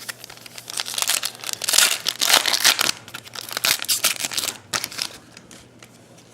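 Wrapper of a football trading-card pack crinkling and being torn open: a dense run of crackling from about a second in until about five seconds, loudest around two to three seconds.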